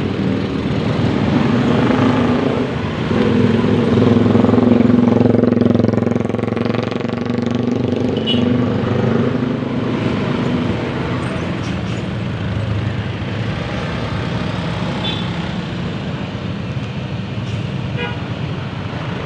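A bus's telolet basuri musical horn playing a run of held, changing tones over the bus's engine, loudest in the first half; then the engine and traffic noise carry on.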